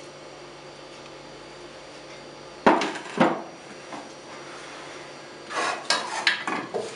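Two sharp knocks a little under three seconds in, then a run of knocks and scrapes of a wooden spoon in an enamel pot as stew is dished out onto a plate.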